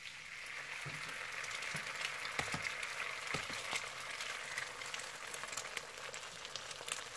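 Two eggs sizzling and crackling in hot oil with fried garlic in a nonstick wok, with a metal spoon knocking and scraping against the pan now and then as they are stirred.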